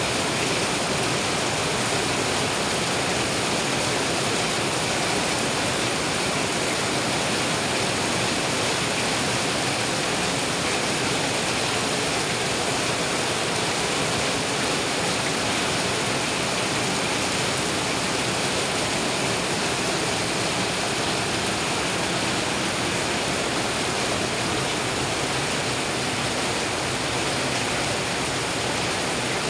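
Heavy rain running off the edge of a corrugated roof, water pouring down in a row of streams; a steady, even rushing with no breaks.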